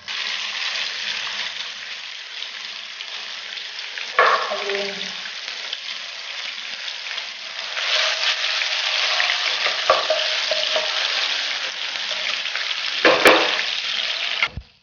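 Chicken pieces frying in hot oil in a pan: a loud, steady sizzle that starts suddenly as they go in and swells again about halfway through. A few short knocks and scrapes come as they are stirred.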